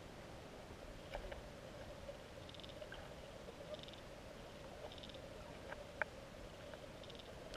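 Underwater river ambience heard through a camera's waterproof housing: a steady hiss and hum, with a faint short buzz repeating about every second and a few sharp clicks, the loudest about six seconds in.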